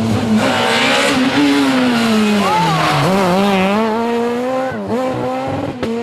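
Škoda Fabia rally car engine at high revs, dropping in pitch as the car slows for a corner, then rising again as it accelerates away, with a brief gear change about five seconds in.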